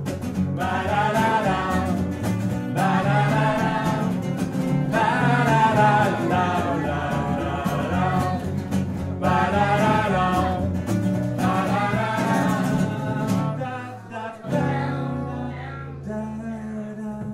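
Live acoustic band music: strummed acoustic guitars under a melodic vocal line. The vocal line drops out about fourteen seconds in, leaving the guitars playing on.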